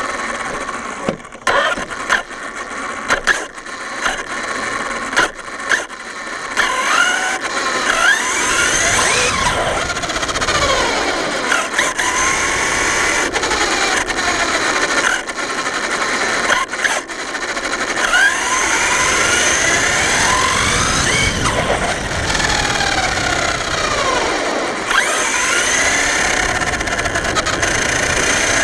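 Onboard sound of an Arrma Talion V2 RC car running on 6S. Its Castle 1717 1650kv brushless motor and gearing whine, rising and falling in pitch with the throttle, over tyre noise on asphalt. The first several seconds hold short stop-start bursts with sharp clicks and knocks, and after that it runs steadily.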